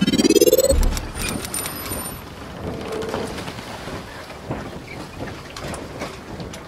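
Logo-intro sound effects: a rising swoosh-like tone that ends in a deep boom under a second in, followed by a brief sparkling shimmer and then a steady, noisy, rumbling wash with a few light ticks.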